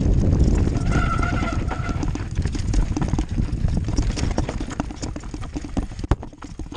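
Mountain bike rattling down a rocky trail: tyres crunching over stones and the bike clattering with many quick knocks, over a steady rumble of wind on the microphone. A brief high tone sounds about a second in, and there is one sharp knock near the end.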